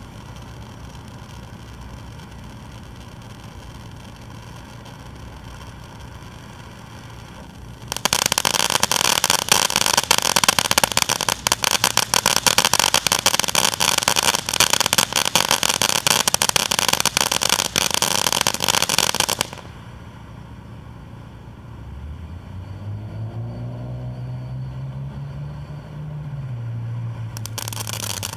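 Consumer fireworks fountain (180°, P3112) burning: a steady spray of sparks at first, then about eight seconds in a loud, dense crackling that runs for about ten seconds before dropping back to a quieter spray. In the quieter stretch a low droning tone rises and then falls in pitch, and near the end the loud spray starts up again.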